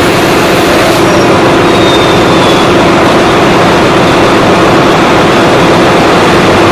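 Yanmar 6EY18LW six-cylinder diesel generator engine running steadily after a successful start: a loud, even engine noise with a steady hum.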